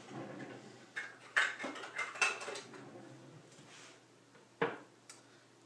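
Kitchen dishes and utensils clinking and knocking a few times, with some rustling handling noise, while half a cup of skim milk is measured out for the batter.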